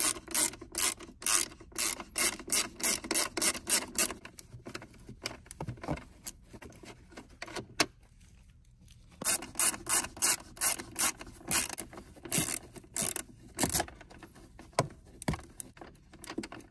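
Hand Torx T20 screwdriver backing out two screws from plastic console trim: quick repeated clicking and rubbing, about three or four clicks a second. It comes in two runs, one per screw, with a short pause between them.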